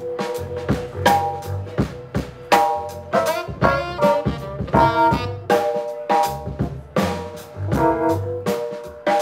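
Live jazz quartet playing: a drum kit with busy snare and bass-drum hits, an upright bass, a keyboard and a saxophone playing melodic phrases.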